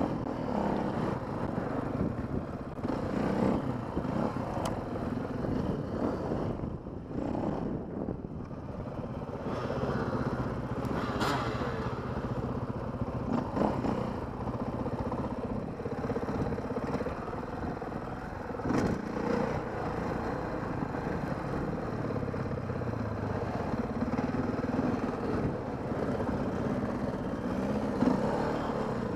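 KTM dirt bike engine running under way, its revs rising and falling with the throttle, with a few sharp knocks from the bike over rough ground.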